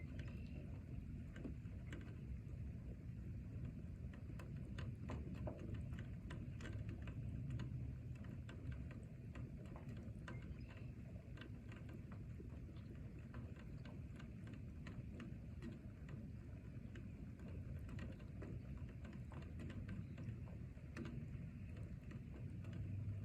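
Rain falling: a steady low rush with many irregular sharp ticks of drops hitting nearby surfaces.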